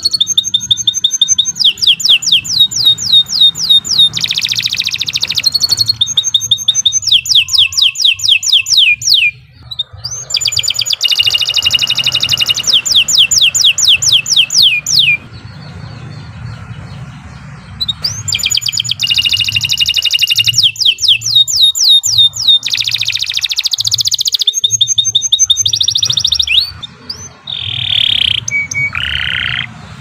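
Domestic canary singing long phrases of rapid repeated trills, each fast high note falling in pitch, with short breaks between phrases and a few buzzy notes near the end.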